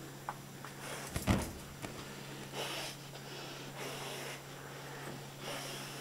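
Handheld camera handling noise: a few light clicks, a low bump about a second in, and several soft hissing swells over a steady low hum.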